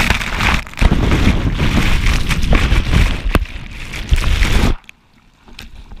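Loud rushing of breaking surf and churning whitewater washing over an action camera, with a few sharp knocks from water hitting it. The rushing drops away suddenly about five seconds in.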